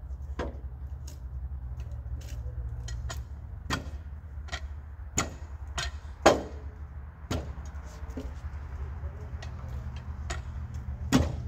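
Irregular sharp knocks of a hand tool striking an elm log on the sawmill bed, about a dozen strikes with the loudest about six seconds in and another near the end. A steady low engine hum runs underneath.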